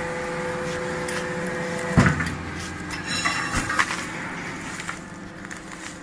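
Vertical cardboard baler's hydraulic power unit running with a steady hum. About two seconds in there is a loud thump and the hum stops, followed by a few light metal clanks.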